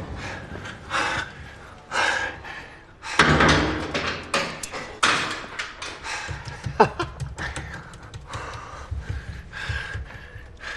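A run of knocks and thuds in a small room, several of them spread out, the loudest and longest about three seconds in and a sharp one a little past the middle.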